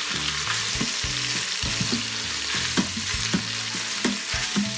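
Sliced kielbasa sizzling in oil in the pot of a Farberware electric pressure cooker on its sear setting. A spatula stirs and scrapes the pieces around the pot, with a steady sizzle and short scraping strokes every half second or so.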